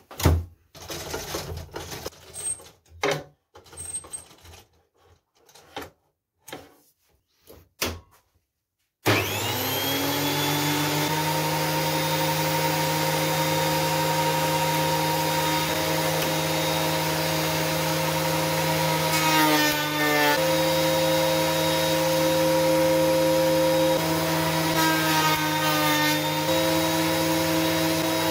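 Scattered clicks and knocks of handling, then about nine seconds in a DeWalt benchtop thickness planer switches on abruptly and spins up to a steady high whine. Twice in the second half its tone steps down briefly as a board feeds through the cutterhead.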